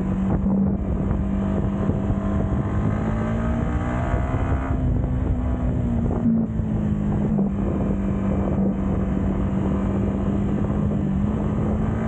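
Yamaha MT motorcycle engine and exhaust running at a steady cruise while riding, its note rising slightly about four seconds in and then settling back, with wind rushing over the microphone.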